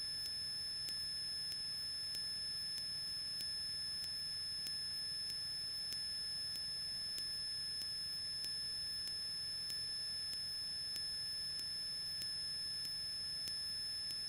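Steady electrical whine and hiss on an aircraft intercom audio feed, several high fixed tones at once, with faint regular ticks about every two-thirds of a second.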